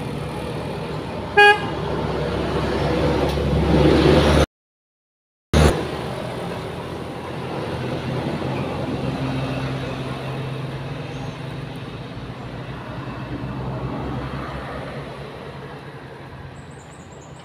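Road traffic passing: a short horn toot about a second and a half in, then engine noise building until the sound cuts out for about a second. After that, a truck's diesel engine drones steadily as it pulls up the grade, slowly fading away.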